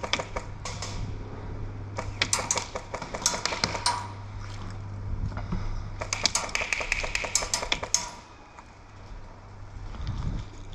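Airsoft guns firing: a few single sharp shots at the start, then two quick strings of shots, one about two seconds in and one about six seconds in, each lasting about two seconds.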